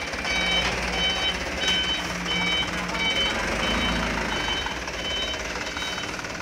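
Truck reversing alarm beeping about one and a half times a second, each beep a short high tone, growing fainter near the end, over the low hum of a Mitsubishi Colt Diesel Canter dump truck's running diesel engine.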